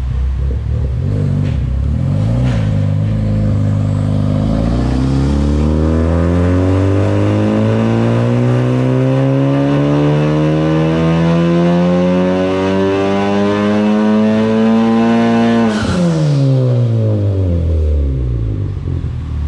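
Car engine on a chassis dyno making a wide-open-throttle pull: its pitch climbs steadily for about twelve seconds, then drops sharply as the throttle is released and the engine winds down.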